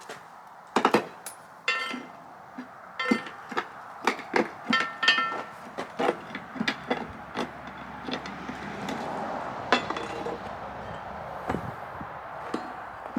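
Sharp metal-on-metal taps and clinks, some with a brief ring, as tools work rusted carriage bolts and iron fittings loose from an old sawmill carriage. The strikes come quickly for the first half, then thin out over a softer rushing noise.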